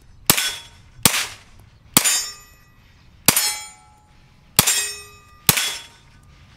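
Six 9mm shots from a Glock 19 Gen 4 fired in a Meta Tactical Apex bullpup carbine kit (16-inch barrel), spaced about a second or a little more apart, each with a brief ringing tail.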